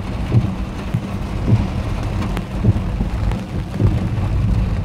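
Heavy storm rain on a car, heard from inside the cabin as it drives along a wet road. The windshield wipers give a low knock about once a second.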